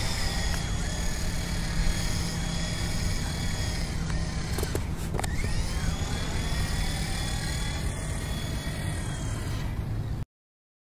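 Brushed electric motors of a WLtoys V915 Lama RC helicopter whining in flight. Several steady high tones drop in pitch about five seconds in and climb back up as the motor speeds up again, over a low rumble, and the sound cuts off suddenly near the end.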